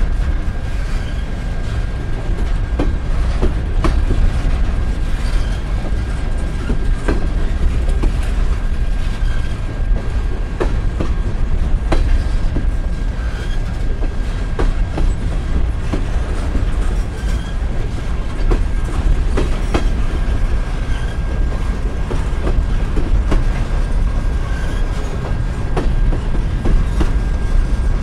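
Empty covered-hopper grain cars of a freight train rolling slowly past: a steady low rumble with the wheels clicking over rail joints, and a thin steady high tone over it.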